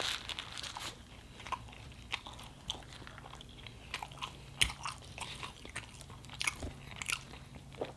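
Close-miked chewing with irregular wet mouth clicks and smacks, several a second.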